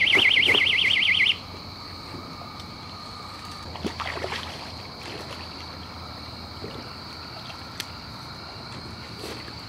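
Electronic bite alarm on a fishing rod sounding a loud, fast warbling beep for about a second and a half: the signal that a fish has taken the bait. Then a steady high hum of night insects with a few faint rustles.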